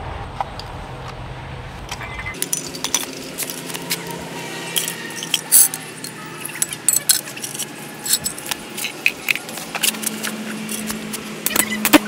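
Irregular metal clicks and clinks from wire leads, clamps and tools being handled on a concrete floor, over a low hum that cuts off about two seconds in.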